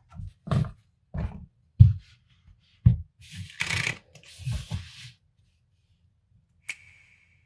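Handling noises: a string of soft thumps and taps, then a couple of seconds of scraping and rustling as a white plate is set down and moved on a foam mat. Near the end, a single light click on the plate with a brief ring.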